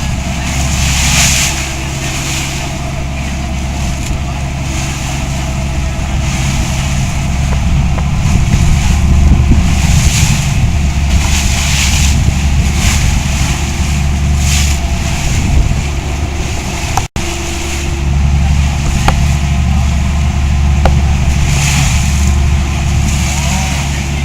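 A boat's inboard engine running steadily underway, a constant low hum with water rushing and splashing past the hull in recurring washes. There is a brief cut in the sound about two-thirds of the way through.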